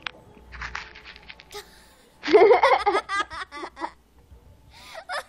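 Giggling laughter: faint giggles about a second in, then a loud burst about two seconds in that breaks into rapid short laughs, with more giggling starting near the end.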